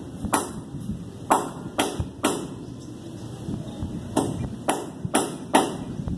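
A series of about eight sharp knocks, four in quick succession, then a pause, then four more about half a second apart, over a low rumbling background.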